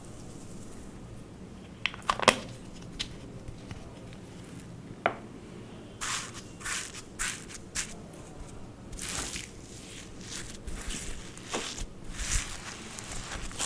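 Clear slime being worked with makeup mixed in: sticky squishing and crackling bursts, dense from about halfway through. A few sharp clicks come in the first few seconds.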